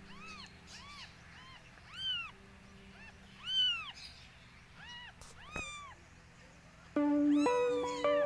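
Newborn kitten mewing: a string of short, high mews, about one a second. Music with held notes comes in loudly near the end.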